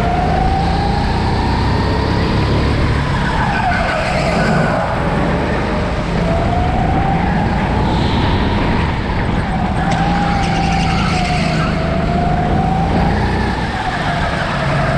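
Go-kart heard onboard at racing speed, its drive note climbing in pitch along the straights and dropping into each corner, several times over. Tyre squeal comes in through the turns.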